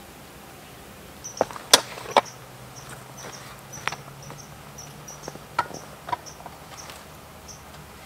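Split firewood knocking as logs are put into a wood furnace onto a bed of embers: a few sharp wooden clunks, the loudest around two seconds in, with fainter knocks later.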